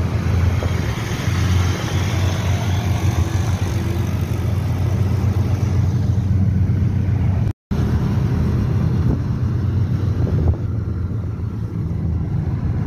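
Steady low rumble of a car driving along a paved road, heard from inside the cabin: engine, tyre and wind noise. The sound cuts out completely for a split second a little past halfway.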